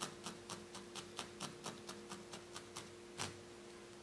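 Felting needle tool stabbing rapidly into a small tuft of wool on a burlap-covered felting pad: a steady run of light clicks, about four a second, ending with one louder click a little after three seconds as the tool is pushed into the pad and left standing.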